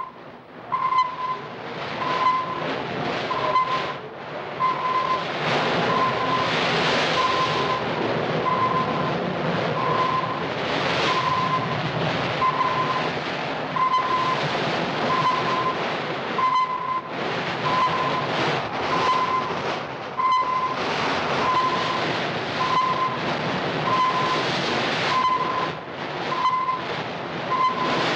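Asdic sonar pinging: a short, high beep repeating a little more often than once a second as the corvette closes on a submerged contact. Under it runs a loud, steady rushing rumble of the ship under way at attack speed.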